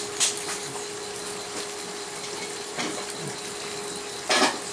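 Liquid in a frying pan simmering on an induction cooktop: a steady hiss over a steady hum, with a few short louder spurts of hiss, the loudest near the end.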